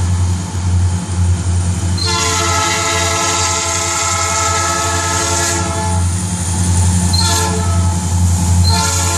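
Norfolk Southern diesel locomotive's air horn sounding for the grade crossing: a long blast starting about two seconds in, a short pause, then further blasts near the end. Under it runs the steady low rumble of the approaching locomotive.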